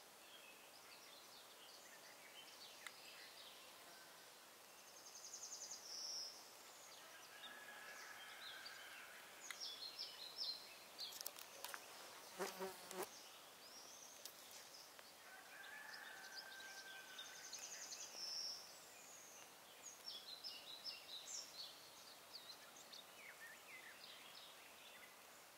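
A flying insect, a fly or bee, buzzing past several times, loudest about halfway through when it comes close. Short bird chirps sound faintly in the background.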